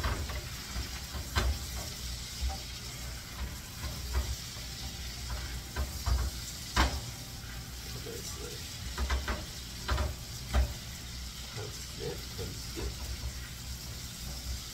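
Pork chops sizzling steadily in butter in a frying pan, with sharp clicks and knocks of a utensil against the pan as the chops are moved, loudest about seven and ten seconds in.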